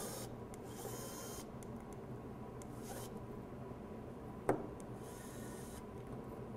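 Precision screwdriver driving small screws into an aluminium plate to fasten a COB LED: faint short scraping rubs and one sharp click about four and a half seconds in.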